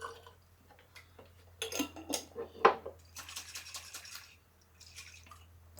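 A salsa jar being rinsed out with a splash of chicken broth: a few clinks and knocks as it is handled, then about a second of sloshing, rushing liquid.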